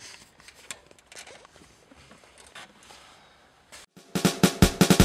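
Faint clicks and rustling of wires and plastic trim being handled under a car's dashboard. About four seconds in, a loud, fast drum beat of a rock music track starts.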